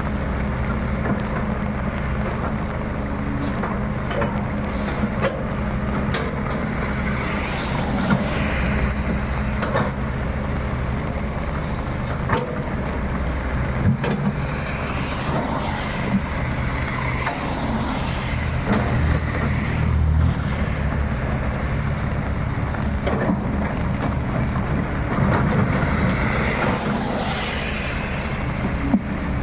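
Hydraulic excavator's diesel engine running steadily under load, with scattered sharp cracks and knocks as it works at uprooting oil palm trees.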